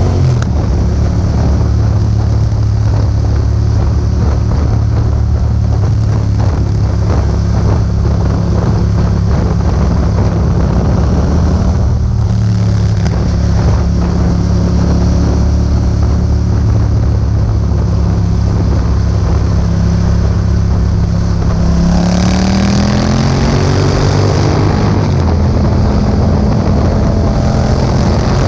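Yamaha MT-07's parallel-twin engine through an Akrapovic exhaust, running steadily while riding, then rising in pitch for a few seconds as it accelerates near the end. Wind noise on the microphone runs underneath.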